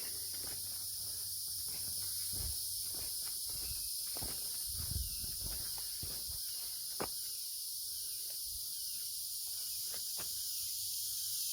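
Steady high-pitched drone of cicadas and other insects, with a few faint knocks and rustles.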